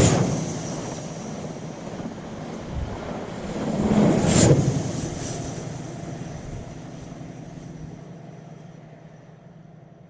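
British Rail train passing under a bridge. It is loudest right at the start, swells to a second loud peak about four seconds in, then fades steadily as it draws away.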